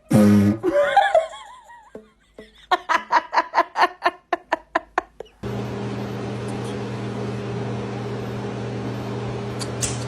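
A person laughing in a quick run of about a dozen 'ha' bursts, after a loud wavering cry at the start; a steady low hum takes over about halfway through.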